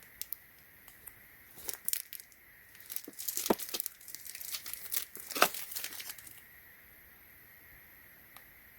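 Packaging being handled and opened: plastic crinkling and tearing in irregular crackles that stop a little over six seconds in.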